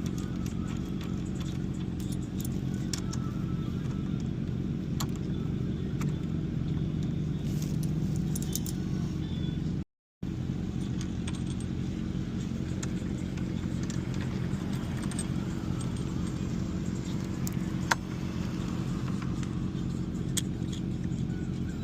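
Scattered light metallic clinks and taps from tools and brake parts being handled while a motorcycle front brake caliper is taken off, with a sharper click about eighteen seconds in. Under it runs a steady low mechanical hum, and the sound cuts out for a moment about ten seconds in.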